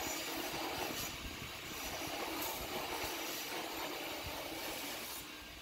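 Belt grinder running with a 1-inch small-wheel attachment, grinding the finger choil into a hardened steel-and-copper knife blade: a steady grinding hiss that tapers off near the end.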